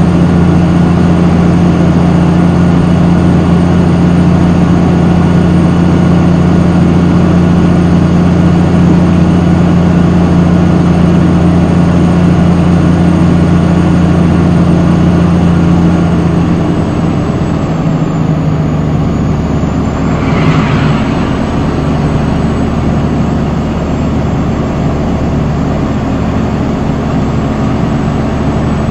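Caterpillar 3406E inline-six diesel in a Kenworth pulling hard up a steep grade, heard from inside the cab as a steady, loud, low engine drone. About 17 seconds in the engine note drops a little in pitch, and a brief higher-pitched noise sounds about three seconds later.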